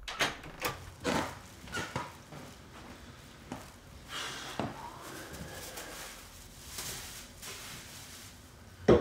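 Plastic shopping bag rustling and crinkling as it is handled, with a few knocks and thumps in the first couple of seconds and a sharp knock near the end.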